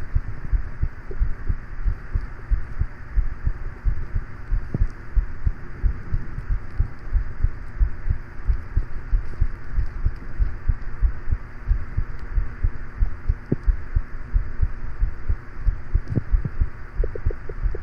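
Human heartbeat: a steady, regular run of low thumps, over the steady hum of a fan.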